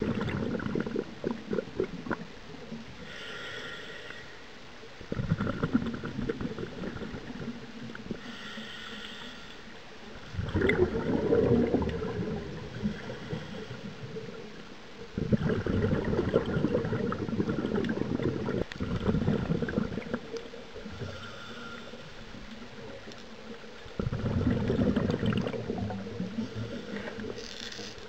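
Scuba diver breathing through a regulator underwater: five rumbling, bubbling exhalations a few seconds long, about five seconds apart, with quieter inhalations carrying a faint hiss between them.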